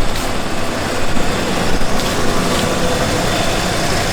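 Ford F-150 pickup engine idling steadily, running to charge the tractor's battery through jumper cables, with a few light knocks.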